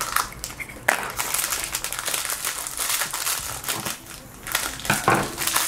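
Crinkly foil wrapper being handled and unwrapped from a small toy figure, a dense crackling rustle that starts with a sharp click about a second in, eases briefly, then picks up again louder near the end.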